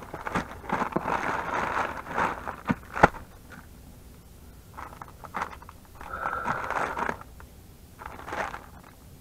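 Plastic mailer bag and plastic-wrapped package rustling and crinkling as they are torn open and handled, with one sharp knock about three seconds in; lighter rustles follow in short spells.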